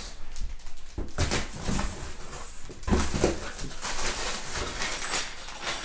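Cardboard and plastic packaging rustling, with small bagged parts knocking about, as sewing-machine accessories are handled in their box. A thump and a brief whine-like sound come about three seconds in.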